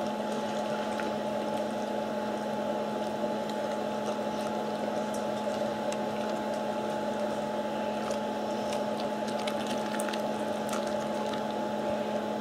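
A dog eating from a stainless steel bowl: wet licking and chewing with small scattered clicks, over a steady electrical-sounding hum.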